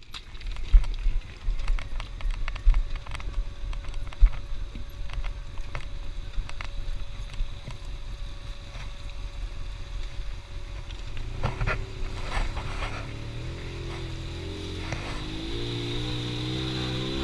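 Off-road vehicle engine running at low speed over rough, rocky ground, with scattered knocks and rattles from the machine jolting. About twelve seconds in, the engine note climbs steadily as it accelerates.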